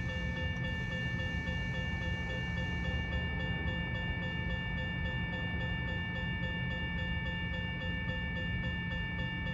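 Railroad grade-crossing warning bell ringing in a fast, even repeat while the crossing gates come down, over a steady low rumble.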